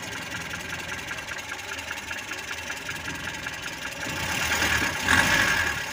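Mitsubishi Colt T120's four-cylinder petrol engine running with a fast, even ticking, then revved up from about four seconds in. The distributor is turned to the left, a setting the owner says makes the engine knock ('napur', a 'krek krek krek' sound) and lose power.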